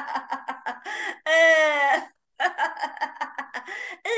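A woman laughing out loud in quick ha-ha-ha pulses, with a long drawn-out vocal note in the middle before the quick laughing starts again: laughter-yoga laughing.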